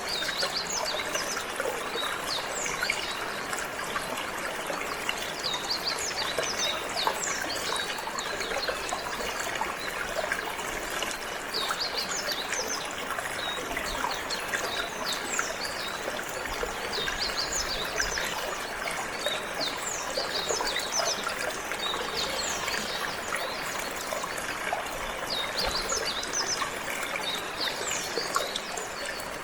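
Water flowing and trickling steadily, with a canary singing over it in many quick high chirps throughout.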